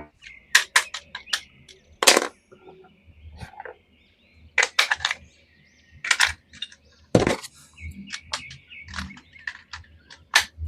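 Plastic toys and packaging being handled: irregular sharp clicks and taps, some in quick clusters, with louder knocks about two seconds in and about seven seconds in.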